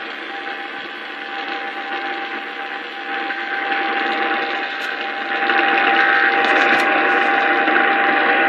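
AM radio reception thick with static and noise, a steady thin whistle tone running through it; the hiss gets louder about five seconds in. The signal is coming in badly.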